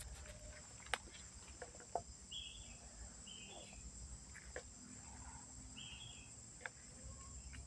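Quiet swamp ambience: insects buzzing steadily at a high pitch, a few short bird chirps near the middle, and occasional faint clicks.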